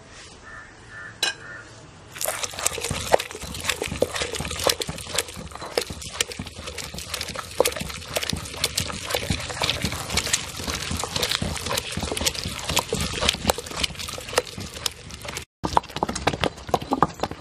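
Stone pestle crushing and grinding garlic, ginger, cinnamon and cloves against a granite mortar: a dense, irregular run of crunching, knocking and scraping that starts about two seconds in, as the whole cloves and spices break down into a wet paste.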